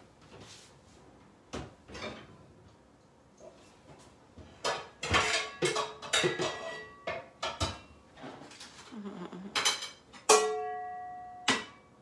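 Kitchenware being handled out of sight: scattered knocks and clinks, a busier clatter in the middle, then a sharp clang about ten seconds in that rings on with a clear tone for about a second.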